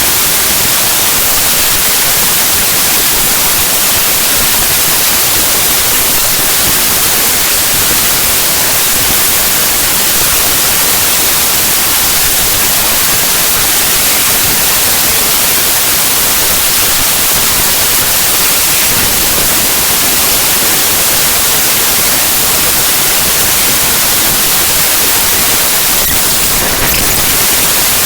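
Loud, steady hiss of white-noise static: the raw bytes of a compressed zip archive played back as 8-bit audio. About 27 seconds in, the texture briefly shifts and picks up a little more low rumble.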